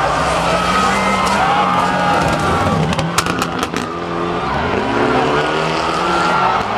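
Mitsubishi Lancer Evo 9 rally car engine running hard, with a quick string of sharp cracks a little past halfway. The revs then climb steadily.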